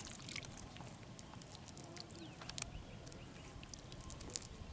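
A wet nylon cast net being gathered up by hand: quiet rustling with a few sharp clicks.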